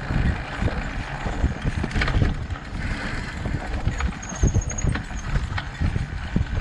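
Fat-tire mountain bike riding over a dirt singletrack strewn with leaves: a continuous low rumble from the tyres and trail, with frequent knocks and rattles as the bike goes over bumps.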